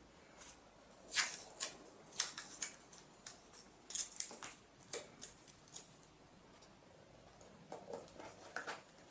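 A run of short, crackly rips and rustles: masking tape being pulled off the roll, torn by hand and pressed down onto paper and cardboard. Softer, lower rustling comes near the end.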